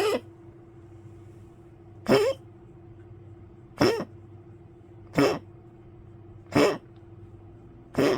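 Old poodle coughing in a fit: six short, harsh coughs about every one and a half to two seconds, over a steady low hum.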